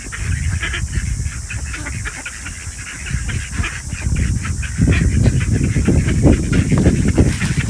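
A flock of mallards and white domestic ducks calling, many short quacks overlapping, over a steady hiss. A low rumble gets louder about five seconds in.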